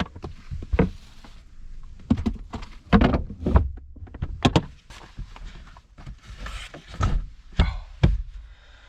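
Irregular knocks, thuds and clatter of camping cooking gear being handled and packed away, with several sharp bangs like a lid or door being shut.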